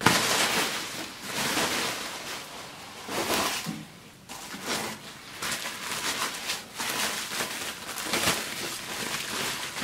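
Bubble wrap rustling and crackling as it is pulled back and handled to unwrap packed parts in a cardboard box, in uneven handfuls.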